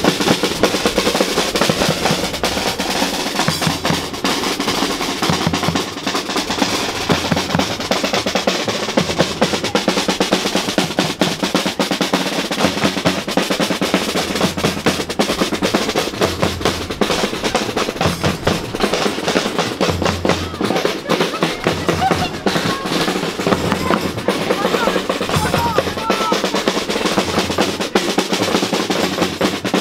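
Marching street band drumline: snare drums playing fast rolls and rhythms over a steady bass drum beat, loud and unbroken.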